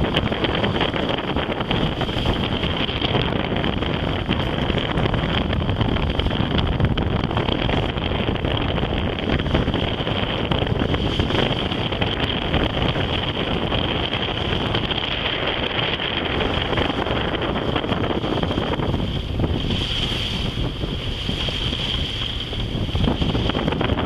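Wind buffeting the microphone on a sailboat under way, with water washing along the hull and a steady high tone underneath.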